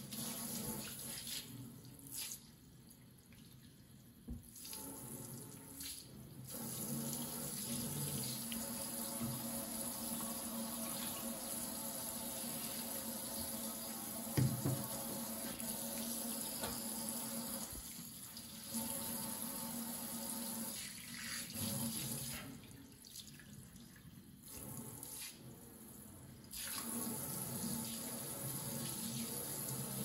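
Kitchen faucet running into a stainless steel sink, water splashing over hands and the sink floor. The flow drops off several times for a second or two, and there is a single knock about halfway through.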